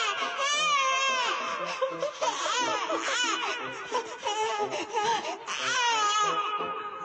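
Infant crying loudly into a handheld microphone, in long wavering wails. The crying eases near the end.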